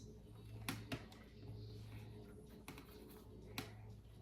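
A few scattered, sharp, faint clicks and taps of a plastic spudger and small phone parts being handled during an iPhone screen reassembly, over a low steady hum.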